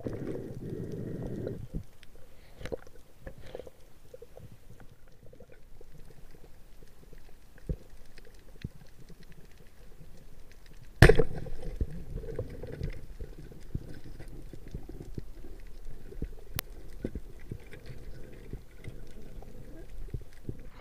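Muffled underwater noise heard through a diving camera's housing, with scattered small clicks and one sharp, loud knock about eleven seconds in.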